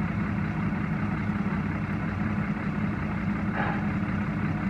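Heavy diesel engine idling steadily with a low, even hum.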